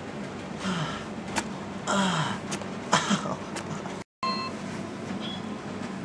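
A man's short pained groans and breaths during chest waxing, three of them, each falling in pitch, with a few sharp clicks between. The sound cuts out for a moment about four seconds in.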